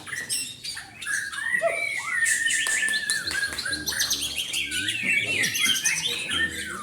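Murai (white-rumped shama) singing without pause: clear whistles mixed with fast high trills and chirps. The keeper presents this song as showing the signs of a murai low on stamina.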